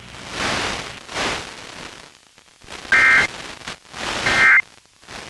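Radio hiss and static swelling and fading, then two short bursts of warbling digital data tones a little over a second apart: the Emergency Alert System end-of-message code marking the close of a tornado warning broadcast.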